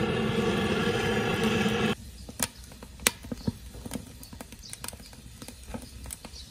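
Butane hand torch burning with a steady, loud rushing sound as it lights split firewood, cutting off abruptly about two seconds in. After that, the wood fire crackles with scattered sharp pops.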